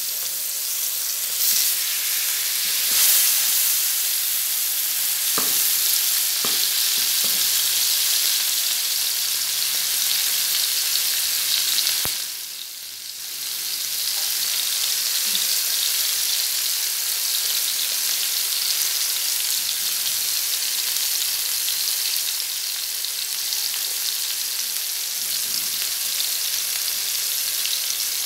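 Tikka-marinated chicken leg pieces sizzling steadily in hot oil on a flat nonstick tawa, with a few faint clicks and a brief drop in the sizzle about halfway through.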